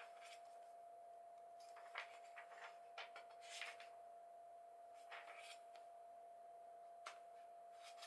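Faint rustles and soft clicks of paperback pages being turned and handled, a few times, over a steady thin high tone in a near-silent room.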